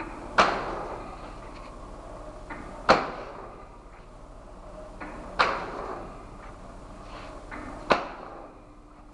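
Flat-bed die-cutting and hot-stamping machine running: its press strikes with a sharp clack four times, about every two and a half seconds, with a low steady hum and fainter mechanical clicks between strokes.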